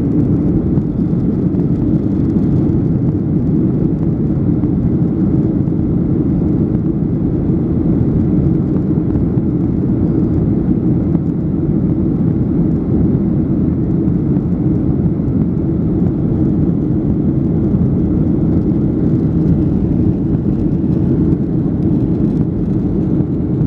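Steady, unbroken airliner cabin noise in flight: the low rushing drone of the jet engines and airflow, heard from inside the passenger cabin.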